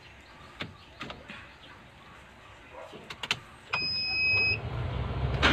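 Car ignition key clicked through its positions, then the starter cranks for just under a second with a steady whine and the minivan's engine catches and settles into a low idle. A short, louder burst of noise comes right at the end.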